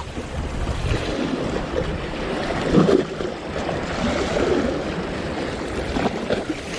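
Strong wind buffeting the microphone with a low, uneven rumble, over the rush of rough waves washing against the shore.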